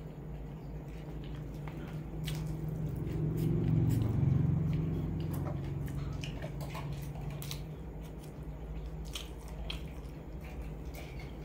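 Close-miked eating sounds: chewing a mouthful of black bean sauce noodles, with many short wet mouth clicks and smacks. A low rumble swells and fades about four seconds in.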